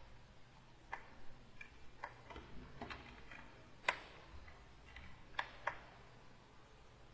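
Irregular light clicks and taps at a computer desk, the digital painter's keys and pen-tablet stylus, about one or two a second, with one sharper click about four seconds in, over a faint low hum.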